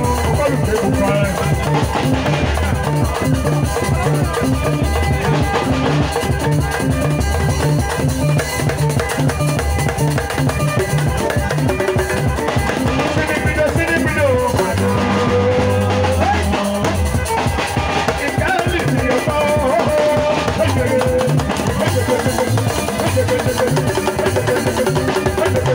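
A live band playing dance music, with a steady drum-kit beat and a bass line under a melody that slides in pitch.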